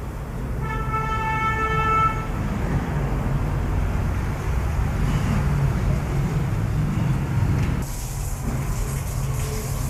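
A vehicle horn sounds once for about a second and a half over a steady low rumble of road traffic. Near the end a high hiss starts.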